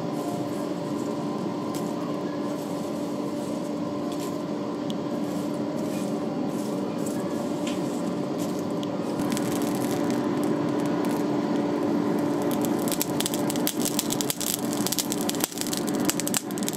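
Charcoal forge fired with forced air: the steady hum of the air blower runs throughout. From about nine seconds in the charcoal starts to crackle and pop, the crackling growing dense near the end as the coals catch and flare.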